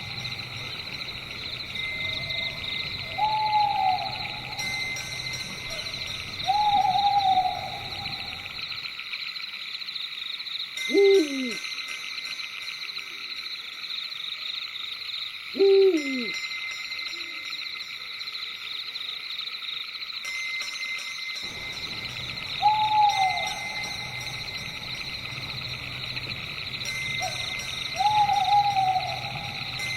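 Steady high-pitched night chorus of crickets, with owl hoots every few seconds. Midway the background thins and two louder owl calls slide steeply down in pitch, about five seconds apart.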